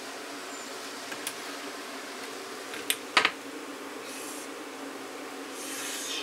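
Pen strokes scratching on a luxury vinyl plank as cut points are marked, with a few light clicks and taps from handling, the sharpest about three seconds in, over a steady fan-like hum.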